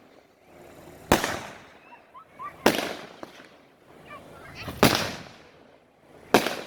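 Fireworks going off: four loud booms about a second and a half apart, each trailing off in echo.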